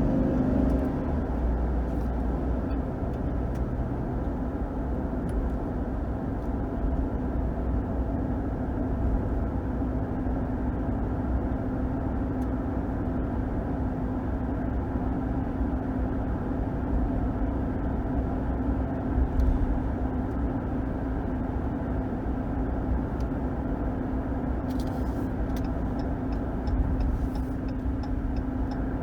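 2021 Ram 1500's 5.7 L HEMI V8 and tyres on the road under steady driving: a continuous drone with a steady low hum. Near the end comes a run of quick, regular ticks, about three a second.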